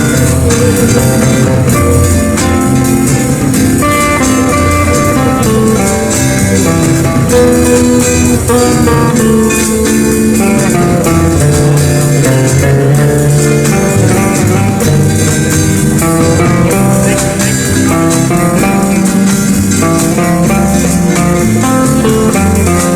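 Background music: an instrumental passage of an old-style rock-and-roll song, led by electric guitar over bass and drums.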